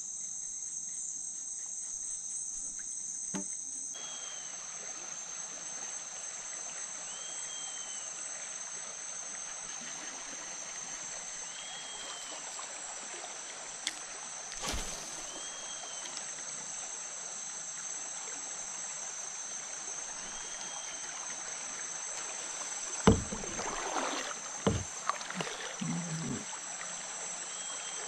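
Water washing along a kayak's hull as it starts moving upriver, beginning about four seconds in, over a steady high trilling of insects. A faint short note repeats about every two seconds, and a few sharp knocks from the kayak come near the end, the first the loudest.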